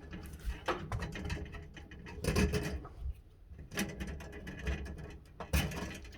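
Handling noise from hands working at a light fixture's wiring: irregular clicks, light knocks and rustling, with a few louder knocks about two and a half seconds in, near four seconds and just before the end.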